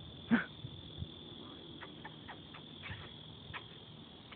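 Insects chirring steadily in one high, even tone, with a short falling call about a third of a second in and a few faint clicks.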